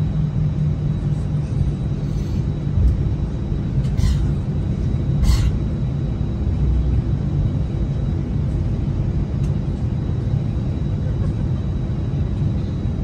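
Steady low cabin rumble of an Airbus A320 taxiing, from the engines at taxi power and the wheels rolling on the taxiway. A couple of brief knocks come about four and five seconds in.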